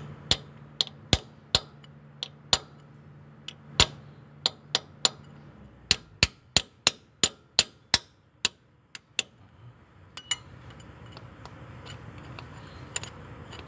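A hammer striking a screwdriver set against a steel engine-block freeze plug (core plug): a series of sharp metallic taps, irregular at one to three a second, that stop about ten seconds in. The blows knock the holed, leaking plug inward so it can be levered out.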